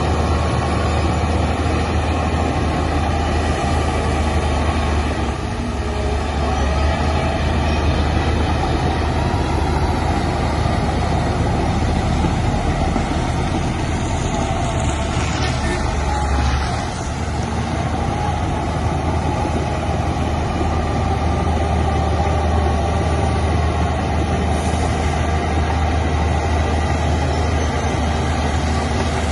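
Heavy diesel engine of an earthmoving machine running steadily with a deep, low hum, dipping briefly twice.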